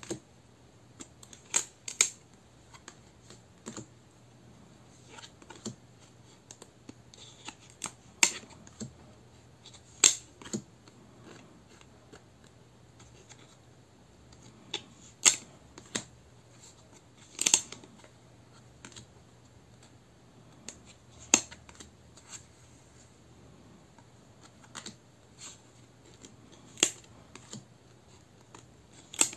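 Stiff gold-edged tarot cards being handled, giving irregular sharp clicks and snaps.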